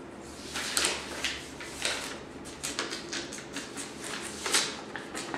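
Paper packaging crinkling and rustling in irregular bursts as a parcel is unwrapped by hand, with a louder crackle near the end.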